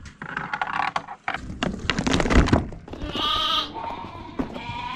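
Sheep bleating, with one clear bleat about three seconds in and scattered knocks around it.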